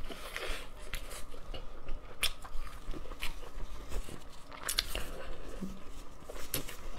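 Close-up biting and chewing of a grilled chicken-and-pork sausage: wet mouth sounds broken by a handful of sharp clicks, as the sausage is bitten and then pulled apart by hand.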